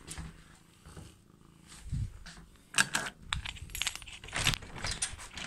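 Handling noise: light clicks and metallic jangles, a dull thump about two seconds in, then a quick run of clicks and rattles through the second half.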